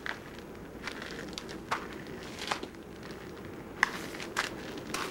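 Footsteps at a walking pace, short knocks about a second apart, with light rustling between them.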